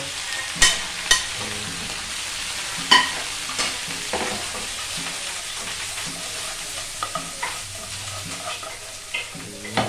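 Beef, sliced onions and dried chili sizzling in a frying pan, with a steady hiss. A few sharp clicks in the first few seconds as a metal spoon scrapes and taps the beef off a plate into the pan, and more clatter near the end as the pan is shaken and stirred.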